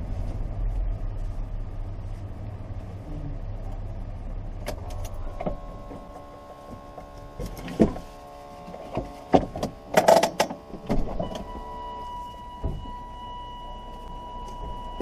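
1989 Chevrolet K1500 pickup running at low speed, its engine rumble dying away about five seconds in. Then the clicks and clunks of a seat belt being unbuckled and the door being opened, and from about eleven seconds a steady electronic warning tone from the dash as the driver's door stands open.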